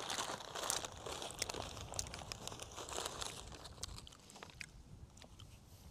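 Faint wind noise rumbling on the microphone, with scattered light crackling and rustling.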